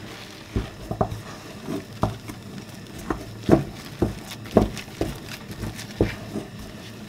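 Wooden spoon stirring thick oat fufu dough in a metal pot, knocking against the pot about twice a second.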